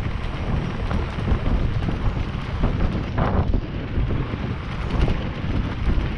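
Wind buffeting the microphone of a moving action camera, over a dense low rumble and rattle of a mountain bike rolling across a cobblestone road.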